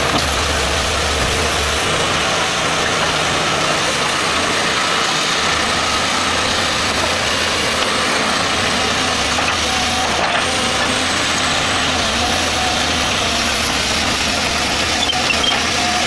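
Caterpillar hydraulic excavator's diesel engine running steadily throughout, a continuous unbroken drone.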